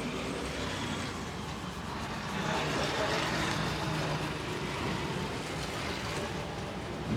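Steady rumble of passing motor traffic, swelling from about two and a half seconds in.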